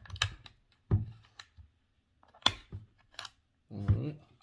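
Sharp plastic clicks, about half a dozen at uneven intervals, as the switches and orbital-action selector on an unpowered Ridgid Octane cordless reciprocating saw are flipped back and forth by hand.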